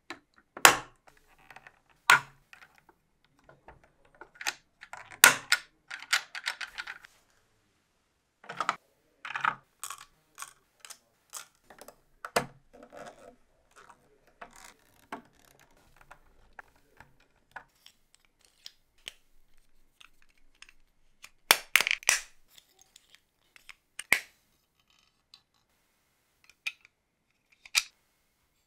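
Plastic model engine kit parts being handled and fitted together: irregular sharp clicks and clacks, some in quick clusters, with short quiet gaps between them.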